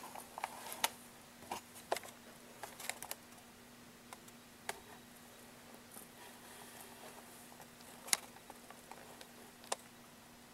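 Faint scattered clicks and light taps as a soldering iron and solder wire are worked against a resistor lead on copper perf board held in a third-hand tool. A faint steady hum runs underneath.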